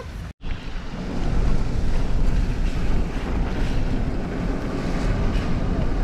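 Wind rushing over the microphone with a low rumble from a vehicle driving at speed, steady after a brief cut-out near the start.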